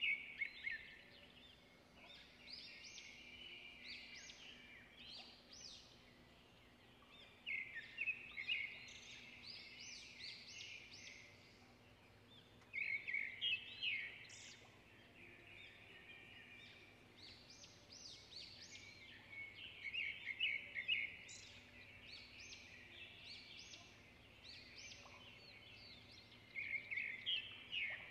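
A songbird singing in recurring phrases of rapid chirps and trills, about every five or six seconds, over a faint steady hum.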